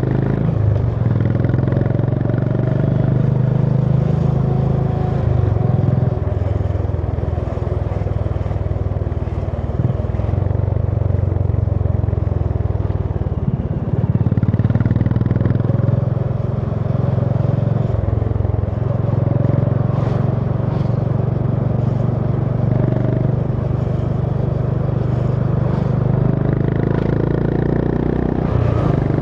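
Honda CB350 H'ness's single-cylinder engine running on the move, its low exhaust note holding steady and shifting in pitch several times as the throttle and gears change.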